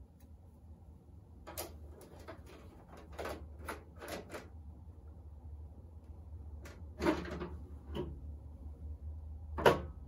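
Plastic clicks and knocks of a wall-mounted split air conditioner's filter and hinged front cover being handled. A sharp snap near the end, the loudest sound, comes as the front cover is shut.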